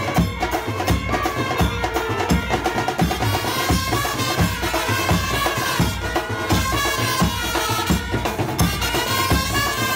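Music with a steady drum beat and a melody gliding up and down over it.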